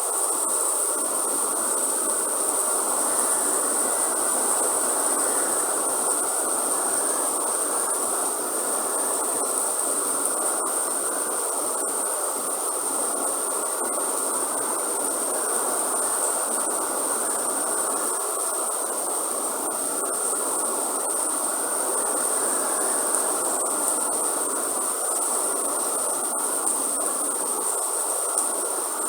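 Heavy rain falling steadily in a rainforest, with a continuous high-pitched drone of insects over the rain.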